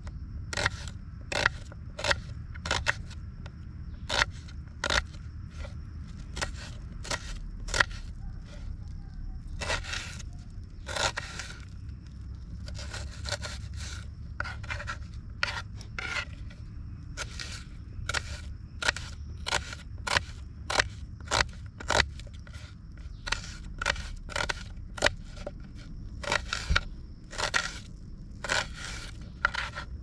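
Repeated short scraping strokes, irregular, about one or two a second, some drawn out longer, over a steady low rumble.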